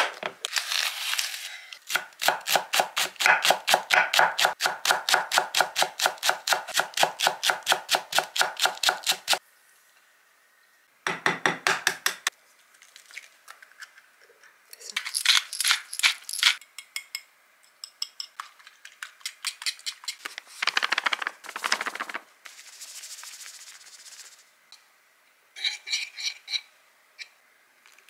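Kitchen food-prep sounds: a fast, even rattle lasting about seven seconds, then a shorter run of the same, typical of thin potato slices being shaken in a lidded plastic container. Later come scattered clinks and short bouts of a utensil working in a ceramic bowl as eggs and batter are mixed.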